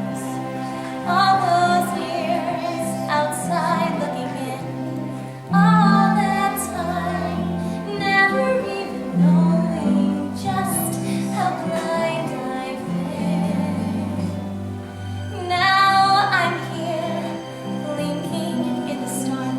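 Song with a woman singing a melody in long held notes over sustained low accompaniment.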